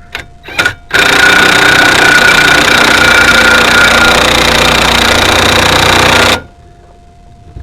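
Power impact wrench hammering a bolt in on a van's rear brake assembly: two short trigger blips, then one continuous burst of about five seconds that stops suddenly.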